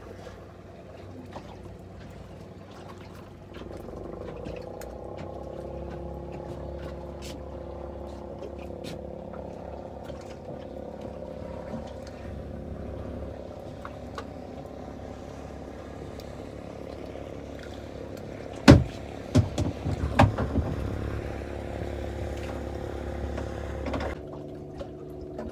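Boat engine running at a steady hum that comes in a few seconds in and stops near the end. A handful of sharp knocks, the loudest sounds, land about two-thirds of the way through.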